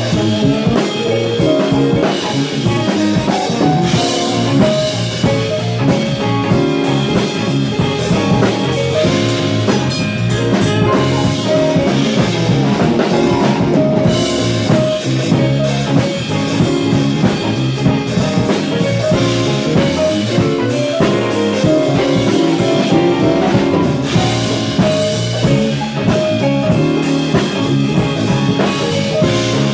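A live band playing an instrumental passage: hollow-body electric guitar, electric bass, keyboard and drum kit, with steady drumming.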